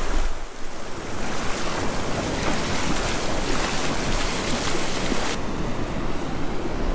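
Shallow surf washing and splashing around a person's legs as they wade out through the water, with wind buffeting the microphone. The hissy splash noise drops away sharply about five and a half seconds in, leaving the wash of the waves and wind.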